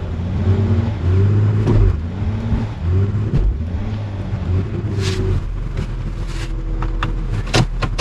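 Four-wheel-drive vehicle's engine revving up and down in repeated surges as its wheels spin in deep snow: the vehicle is stuck and cannot climb out. The revving eases about five seconds in, with a few short hissing sounds near the end.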